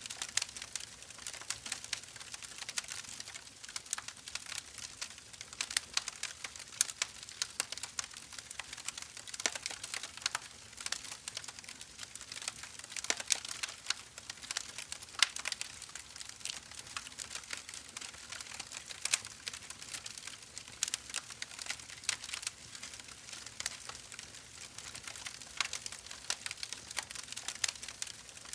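Wood fire burning in a fireplace, crackling and popping constantly with irregular sharp snaps over a soft hiss.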